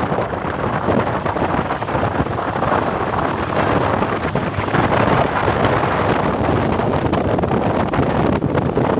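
Steady road-vehicle noise with wind buffeting the microphone; no horn melody is sounding.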